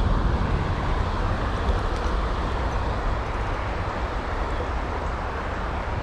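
Steady rush of creek water flowing over shallow rapids, an even noise with a deep rumble underneath.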